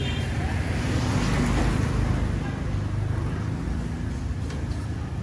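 Street traffic, mostly motorbikes: a steady low engine hum, swelling as a vehicle passes about one to two seconds in.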